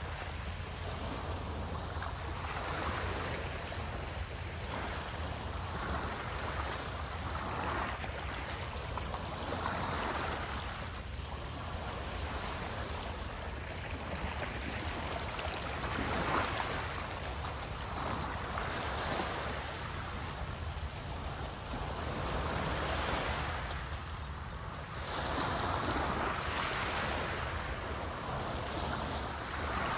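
Small waves breaking and washing on the shore in irregular swells every second or few, over a steady low rumble of wind on the microphone.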